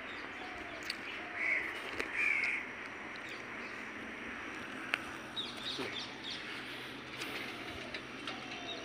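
Crows cawing, two loud harsh caws about a second and a half in, with small birds chirping later over a steady background hiss.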